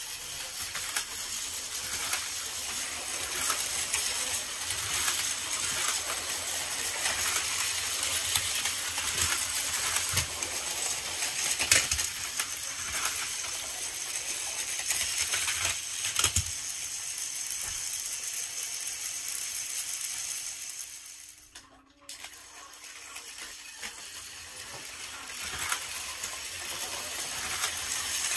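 Several battery-powered Plarail toy trains running at once on plastic track: a steady whirring clatter of small motors and wheels on the plastic rails, with scattered sharp clicks. The sound dips briefly about three quarters of the way through, then picks up again.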